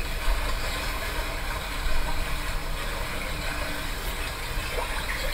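Steady wash of a recorded ocean-waves sound, an even hiss with no breaks.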